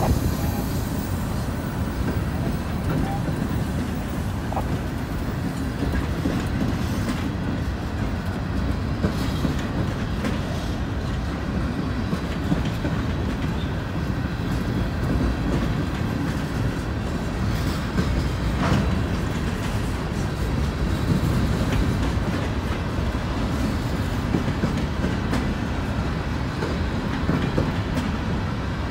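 Freight train of steel open-top hopper cars rolling steadily past at close range, the wheels rumbling on the rails.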